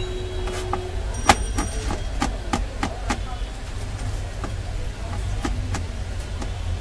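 Large kitchen knife chopping cashew nuts on a plastic cutting board: a quick run of sharp chops, about two to three a second, the loudest about a second in, then a few scattered chops. A low steady rumble runs underneath.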